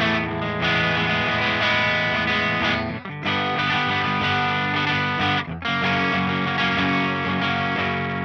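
Kramer Baretta Special electric guitar with a Seymour Duncan DDJ bridge pickup, played through a Diezel VH4 head into a Marshall 4x12 cabinet with heavy distortion. It plays sustained chords with two short breaks, then ends on a chord left ringing and slowly fading.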